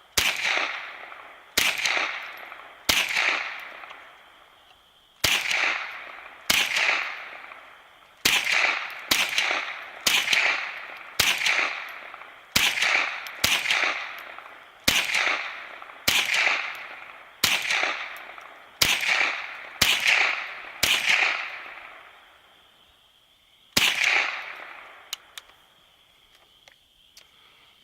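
An ISSC MK22 semi-automatic .22 LR rifle firing about twenty shots in steady succession, roughly one a second and quicker in the middle, each crack followed by a short echoing tail. After a pause of about three seconds comes one last shot, emptying the magazine.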